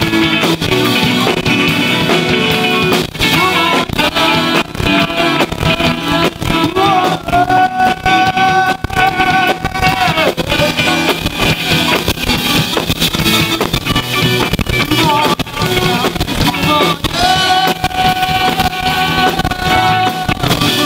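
Live rock band playing: drum kit, electric guitars and keyboard, with a female lead singer. Two long held notes ring out, about a third of the way in and again near the end.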